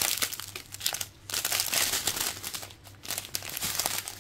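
Small plastic bags of diamond-painting resin drills crinkling as they are handled and turned over. The crinkling comes in three bouts with short pauses between.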